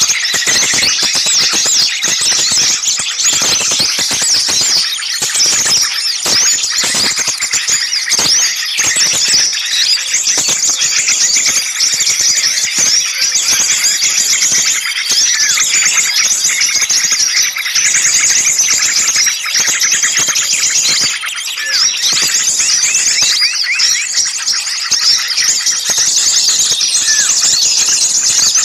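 Many small songbirds chirping and calling over each other in a dense, noisy chorus of quick high notes. It is the agitated, scolding kind of calling that trappers play as a lure to draw small birds in.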